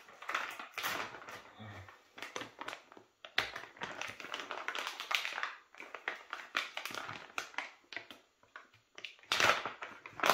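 Silver foil pouch being ripped open and handled: irregular crinkling and rustling, loudest near the end.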